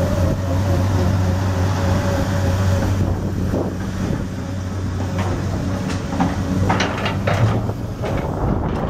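Hyundai Robex 290LC-3 long-reach excavator running, its diesel engine holding a steady drone with a thin whine that fades out about three seconds in. Several metallic clanks and squeaks from the steel crawler tracks come in the second half as the machine moves.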